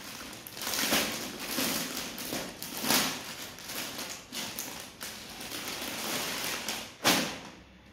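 Clear plastic packaging crinkling and rustling in waves as a silk saree is handled and slid out of its bag, with one sharper, louder rustle about seven seconds in.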